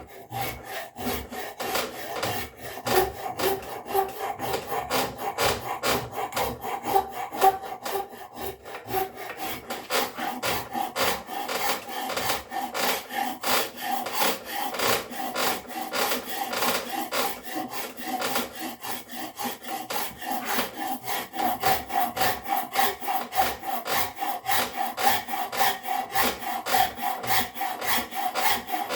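A rasp worked in quick back-and-forth strokes over a wooden handle, about three to four strokes a second, rounding it over into an oblong shape.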